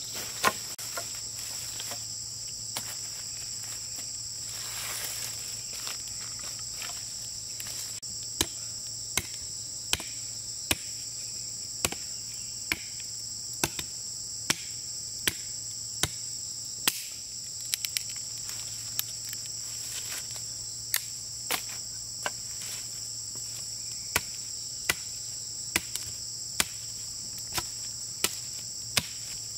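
Machete blade chopping into a hand-held stick, sharp regular strokes about one every three-quarters of a second, regular from about eight seconds in. A steady high-pitched insect buzz continues underneath.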